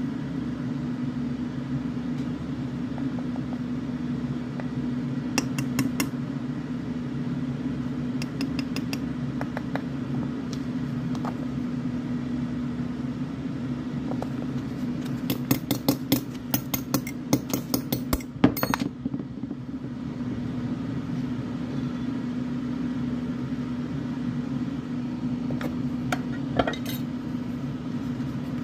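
Scattered clinks and taps of glass and metal, with a quick run of rapid clinks just past the middle, over a steady low electrical hum.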